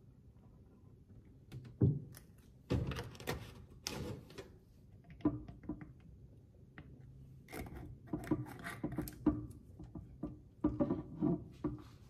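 Containers and food items being handled and set down in a refrigerator: irregular knocks, thunks and light clattering in several short clusters, over a faint steady background.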